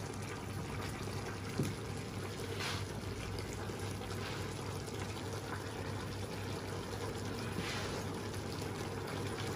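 Conger eel adobo simmering in its soy-and-vinegar sauce in a stainless steel pan: a steady bubbling sizzle with a couple of brief louder hisses. A single light knock about a second and a half in.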